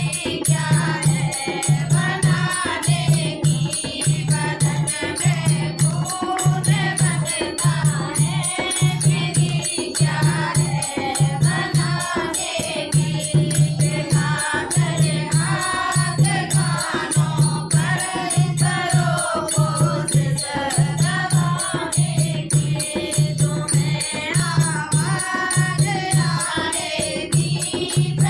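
A group of women singing a Hindi devotional bhajan, with a steady low beat and rattling percussion underneath.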